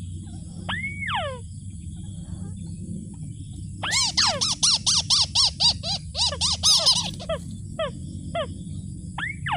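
Rail calls, such as a waterhen's or crake's: two arched notes about a second in, then a loud rapid run of arched notes, about four a second, for some three seconds, trailing off into a few single falling notes.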